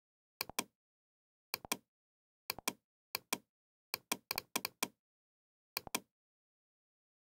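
Computer mouse button clicking: sharp press-and-release click pairs about once a second, with a quicker run of several clicks just past the middle.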